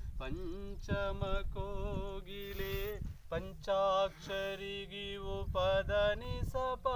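A man singing unaccompanied, holding long notes with a wavering, ornamented pitch, with wind rumbling on the microphone.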